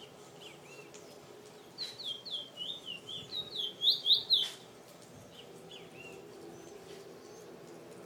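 Caged Trinidad bullfinch (chestnut-bellied seed-finch) singing: a quick run of about a dozen sweet, down-slurred whistled notes, growing louder toward the end of the phrase. A few softer single notes come before and after it.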